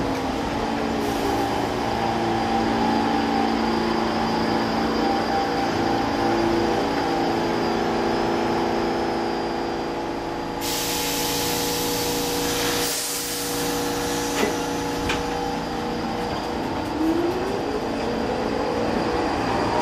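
New York City subway train standing in the station, its equipment giving a steady hum of several tones. About halfway through, a loud air hiss lasts a few seconds, and near the end a rising whine sets in as the train starts to move.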